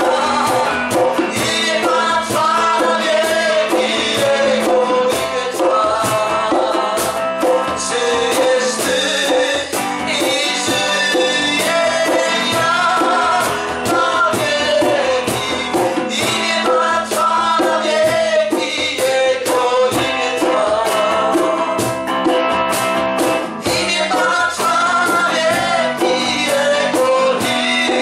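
Christian worship song playing: singing over a band with a steady beat.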